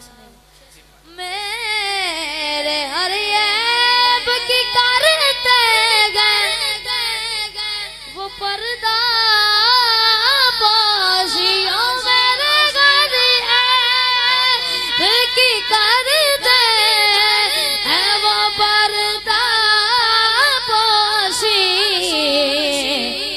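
A boy singing solo into a microphone with no instruments, in long, ornamented lines whose pitch bends up and down; the singing starts about a second in.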